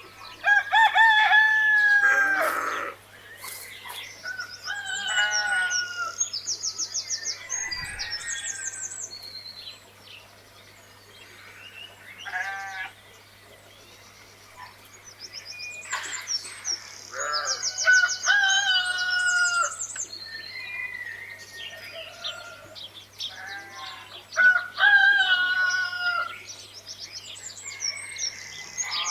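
Roosters crowing several times, each crow a long drawn-out call, with small birds chirping in quick high trills between them and a low steady hum underneath.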